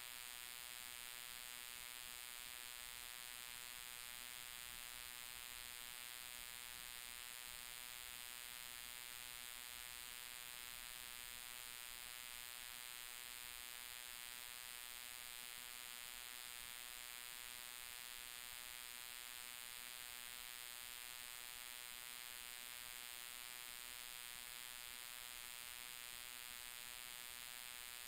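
Steady, faint drone of a 1955 Cessna 180's piston engine and propeller, made of many even tones. It holds constant, with no change in pitch or level.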